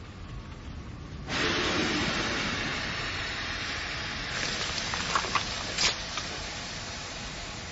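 Anime sound effect of steam hissing off the Colossal Titan's body: a sudden rush of hiss starts about a second in and slowly fades, with a few sharp cracks about two-thirds of the way through.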